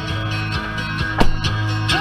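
Background music with guitar, and a single sharp knock about a second in.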